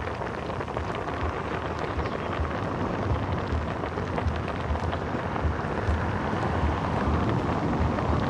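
A pot of vegetable broth at a rolling boil over a charcoal fire, bubbling and popping steadily, over an uneven low rumble.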